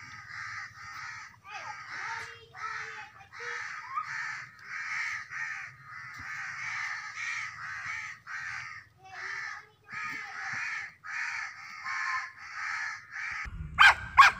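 Newborn puppies crying, harsh squealing cries repeating about twice a second. Near the end a dog barks twice, loud and sharp.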